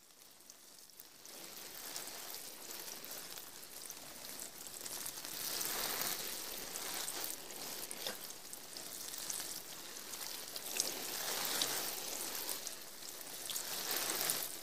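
Rain falling: a steady high hiss with scattered drop ticks, swelling and easing in waves.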